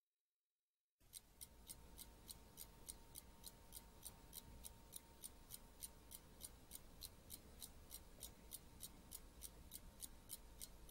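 Faint, steady ticking of a clock, about three ticks a second, starting about a second in after dead silence.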